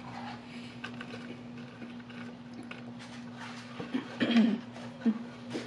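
Close-miked chewing and soft mouth noises of someone eating a Big Mac and McDonald's fries, with small clicks, over a steady low hum. About four seconds in comes a brief louder voiced mouth sound.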